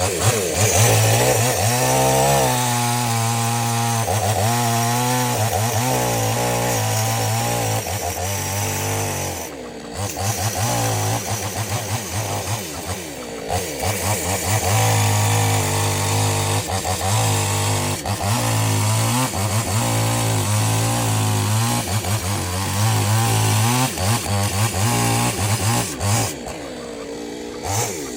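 Two-stroke chainsaw cutting through dead mango wood, the engine running at high speed and wavering in pitch under load, easing off briefly about ten seconds in and again near the end.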